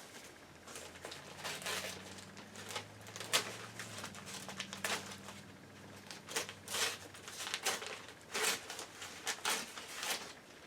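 Irregular rustling and crinkling of packaging as a shipped plant is unwrapped by hand.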